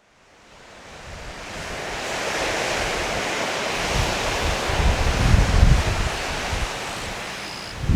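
Ocean surf and strong wind, fading in from silence over the first two seconds. Gusts buffet the microphone with low rumbles, strongest around the middle.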